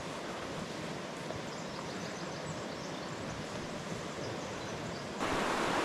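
River water running with a steady rush. About five seconds in it suddenly gets louder.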